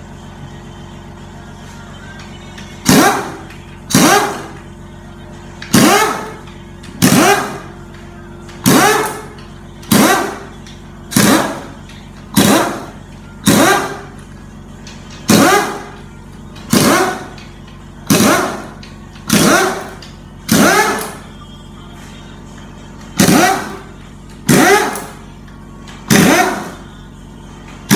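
Pneumatic impact wrench run in about twenty short bursts, roughly one every second or so and often in pairs, as bolts are undone on a BMW 6HP21 automatic transmission during teardown. A faint steady hum runs underneath.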